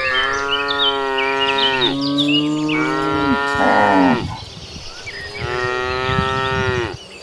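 Several cattle mooing, long drawn-out calls from cows of different pitch overlapping one another for about four seconds; after a short lull a single cow moos again near the end.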